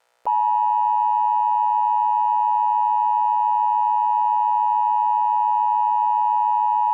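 Emergency Alert System attention signal: a loud, steady two-tone electronic alarm that starts a moment in and holds unbroken.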